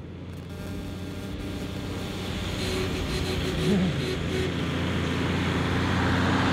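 Four-wheel-drive vehicle's engine running at a fairly steady pitch, growing steadily louder.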